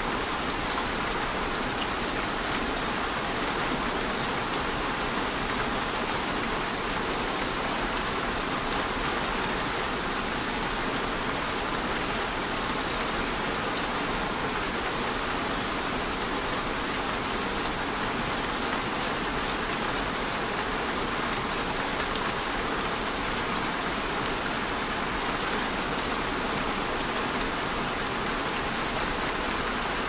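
Steady rain falling, an even, unbroken hiss with no pauses or changes in strength.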